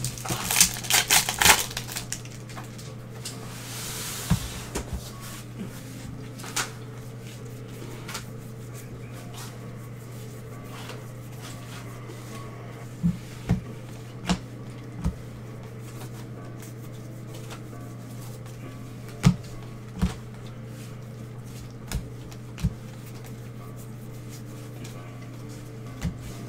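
A trading-card pack wrapper torn open and crinkled in the first couple of seconds, then the cards handled and flipped through, with a dozen or so scattered sharp taps as they are knocked and set down. A steady low hum runs underneath.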